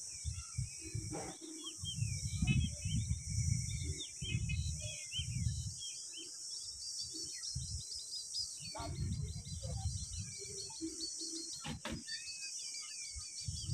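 Small birds chirping and twittering around the nest tree, over a steady high hiss, with repeated low rumbling bursts on the microphone and a couple of sharp knocks, one about a second in and one near the end.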